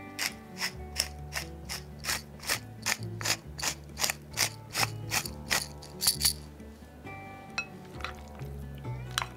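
Hand-twisted pepper mill grinding peppercorns: a regular ratcheting click about three times a second, stopping about six seconds in.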